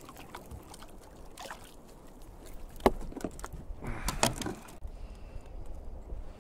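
Handling noises aboard a plastic kayak: scattered clicks, one sharp knock about three seconds in and a cluster of knocks and rustles about a second later, over a steady low rumble.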